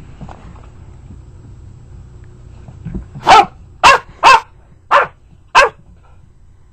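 A dog barking five times in quick succession, starting about three seconds in, each bark short and loud, about half a second apart.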